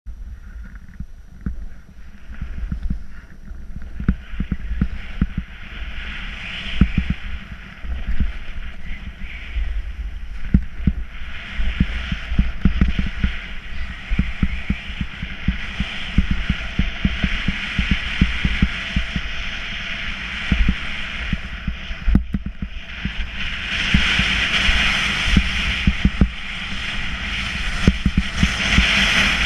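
Snowboard sliding and carving down packed snow, its base and edges hissing and scraping, with wind buffeting the action camera's microphone as a constant rumble. The scraping grows louder near the end.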